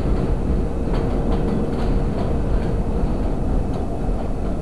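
R142 subway train running on elevated track: a steady rumble with irregular clicks of wheels over rail joints. A steady tone sounds through the first three seconds and then fades.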